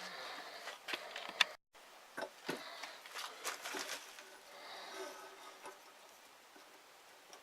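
Hands handling a small homemade wooden bird trap: a few sharp clicks and knocks of wood, then light rustling that fades.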